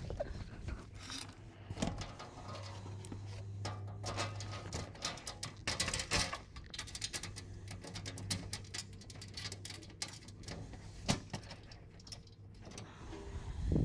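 Scattered small metallic clicks and rattles as an aluminum skid plate is held against a car's underbody and its mounting bolts are threaded in finger tight by hand, over a steady low hum.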